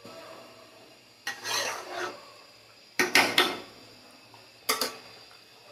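Metal spatula stirring chicken in a milky sauce in a pan, scraping against the pan about a second in, then a few sharp metal clinks on the pan around the middle and once more near the end.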